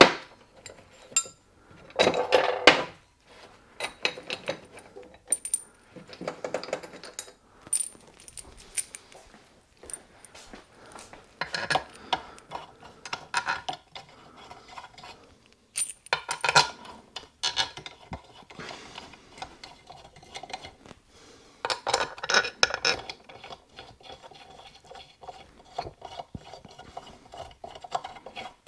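Metal bolts and washers clinking and rattling in short bursts as they are sorted out and started by hand into the crankcase cover of a Yamaha G29 golf cart engine.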